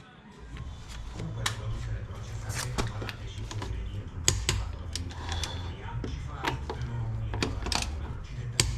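Torque wrench ratcheting on a wheel's lug nuts: irregular sharp metallic clicks over a steady low rumble.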